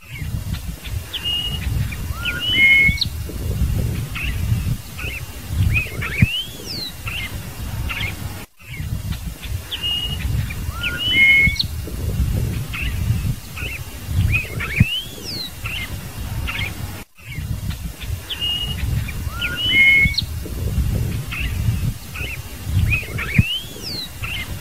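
Scarlet-headed blackbird singing: short clear whistles and rising and falling slurred notes. The same sequence repeats about every eight and a half seconds, with a brief gap between repeats, over a low rumble.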